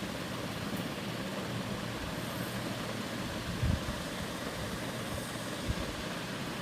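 Banana bondas (balls of banana, jaggery and wheat-flour dough) deep-frying in hot oil: a steady sizzle, with a couple of soft low knocks partway through.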